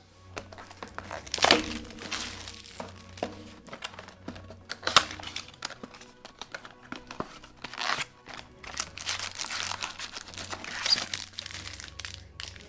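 Wrapping on a box of 2021 Topps baseball cards being torn open and crinkled by hand: an irregular run of rips and crackles, loudest about a second and a half in, around five seconds, and near the end.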